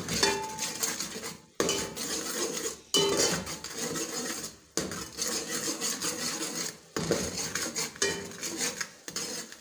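A metal ladle scraping and clattering against the inside of a metal cooking pot as onion and spice masala is stirred, in runs of strokes with a few short breaks.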